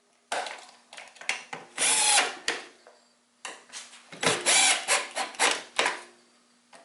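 Power drill driving pocket-hole screws into wood in short spurts, in two runs of several seconds each, fastening a base to a tabletop with Kreg-style pocket screws.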